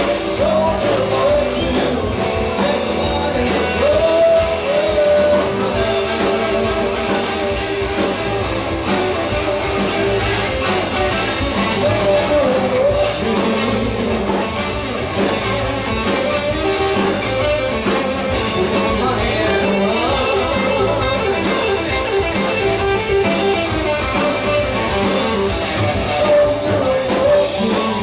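Live rock band playing: electric guitar, electric bass and drum kit, with a steady drum beat and cymbal hits under a bending guitar line.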